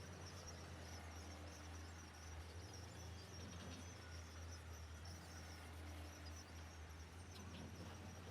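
Faint outdoor sound: a steady low drone of distant heavy-machinery engines running, with insects buzzing high and steady over it.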